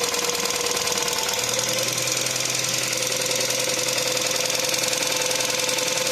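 Volkswagen 1.2 TSI four-cylinder petrol engine idling with a knocking tick from hydraulic lifters that are still filling with oil. About a second and a half in, the engine note shifts slightly.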